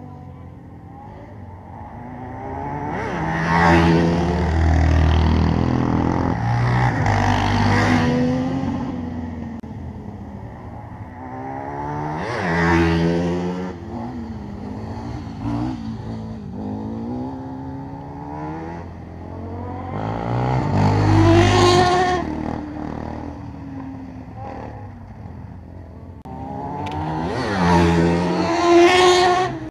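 Sport quad bikes racing past on a track, engines revving up and easing off as they go. They pass several times, each swelling loud and fading; one of the loudest passes comes near the end.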